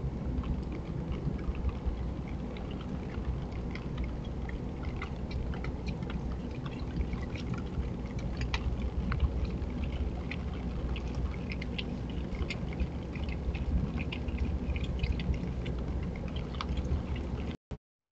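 Virginia opossum eating from a pet-food dish: scattered small clicks of chewing and crunching over a steady low rumble of background noise, which cuts off suddenly near the end.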